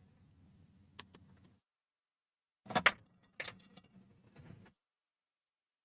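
Small metal tools clinking and rattling as they are handled at the workbench: a light click about a second in, then a short jingle of several clicks with a faint metallic ring about three seconds in. No hot-air blower is heard.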